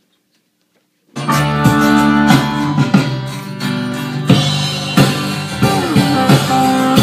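Guitar-led band music starts abruptly about a second in after near silence, then plays loudly and steadily with a regular beat.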